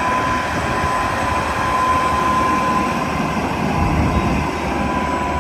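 Heavy truck's diesel engine running as it hauls a tracked excavator on a lowboy trailer, a steady drone with a high steady tone above it; the low rumble grows louder about four seconds in.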